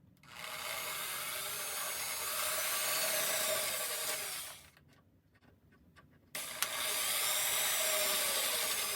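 Electric drill with a step bit running, boring holes through a Lexan (polycarbonate) RC car body: two runs of a few seconds each with a short pause between, the motor whine wavering in pitch.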